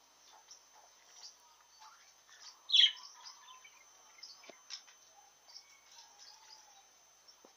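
Budgerigars chirping and chattering in an aviary: a scatter of short, high chirps, with one louder call about three seconds in.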